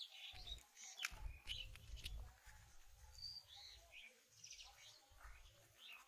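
Faint birds chirping and calling, with short high chirps scattered through, over a low rumble and a few soft clicks.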